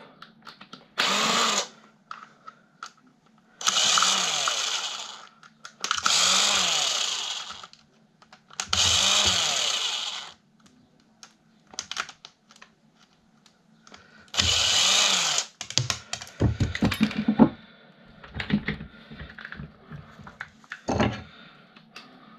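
Electric screwdriver backing out screws from a desk fan's motor housing in five short runs, its motor whirring up and winding down each time. Small clicks and knocks of screws and parts being handled follow in the second half.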